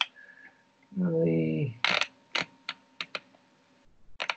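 Computer keyboard keystrokes: a few sharp clicks spaced irregularly, then a quick cluster of clicks near the end.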